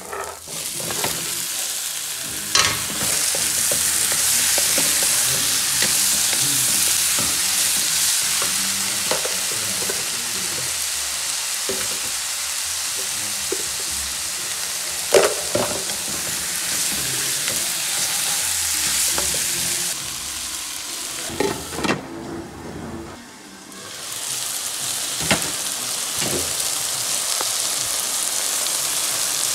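Cubed boneless chicken sizzling in hot oil with fried onions in a non-stick pan, the sizzle jumping up a couple of seconds in as the meat goes in, then frying steadily. A wooden spoon stirs the pieces and knocks now and then against the pan; the sizzle drops briefly about three quarters of the way through and picks up again.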